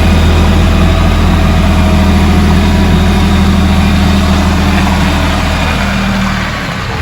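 Kioti CK3510SE compact tractor's three-cylinder diesel engine running steadily at a fast idle, easing off near the end.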